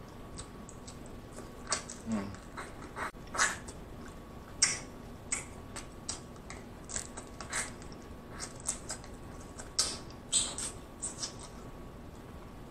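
Close-miked eating sounds of king crab meat being eaten from the shell: wet lip smacks, sucking and chewing in short, irregular bursts.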